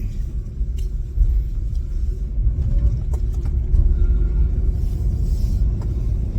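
Steady low rumble of a car being driven, heard from inside the cabin: engine and road noise with no sudden events.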